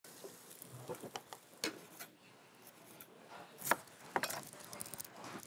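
Kitchen clatter: pots, utensils and dishes clinking and knocking at irregular moments, with a sharper knock about two-thirds of the way through.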